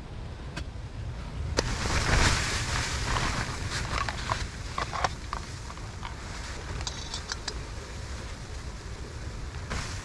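Blizzard wind buffeting the tent in a steady low rumble, swelling into a stronger gust about two seconds in. Scattered clicks and rustles of camp cooking gear being handled sound over it, with a quick run of light ticks about seven seconds in.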